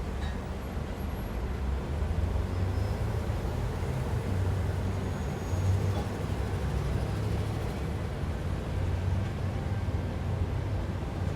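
Street traffic in a city centre: a steady, low rumble of vehicle engines.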